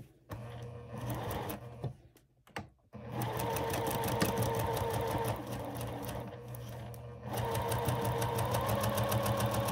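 Domestic electric sewing machine stitching a quarter-inch seam through quilting cotton: a brief burst of fast, even needle strokes, a pause, then steady stitching from about three seconds in that gets louder after about seven seconds.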